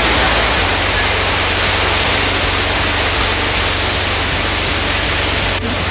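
Waterfall pouring off a sandstone cliff: a loud, steady rush of falling water that cuts in abruptly at the start and dips briefly near the end.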